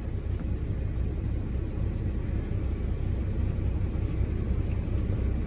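Semi-truck diesel engine idling, a steady low rumble heard from inside the cab, with a few faint clicks.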